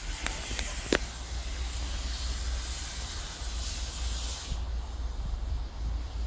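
Narrow-gauge steam locomotive letting off steam: a loud, high hiss that cuts off abruptly about four and a half seconds in, over a steady low wind rumble on the microphone. A few sharp clicks come in the first second.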